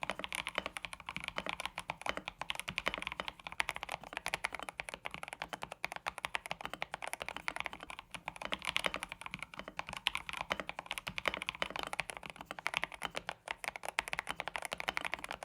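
Continuous fast typing on an Epomaker Shadow X gasket-mounted mechanical keyboard with a tape mod on the back of the PCB: a rapid, irregular run of keystrokes with a deeper, thocky sound.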